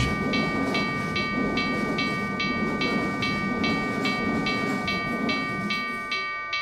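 Pre-mixed train station sound effects: a bell struck steadily about two and a half times a second, over the low rumble of a train that fades away near the end.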